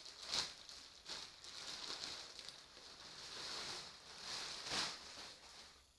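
Packaging rustling and crinkling as new scooter handlebars are unwrapped and handled, with a few louder crackles.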